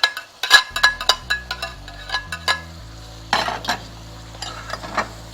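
A metal spoon clinks and scrapes against a large cooking pot as onions, garlic and ginger are stirred into frying chicken, with a light sizzle. The clinking is thick over the first three seconds, then gives way to a couple of scrapes.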